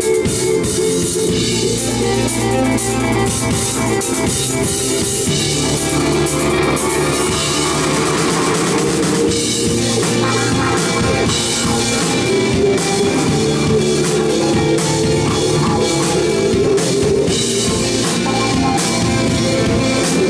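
Rock band playing live: electric guitars, bass guitar and drum kit, loud and continuous.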